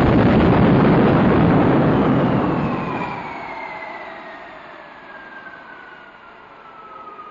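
Early jet gas turbine: a sudden loud roar that dies away over about three seconds, while a whine falls steadily in pitch as the turbine runs down.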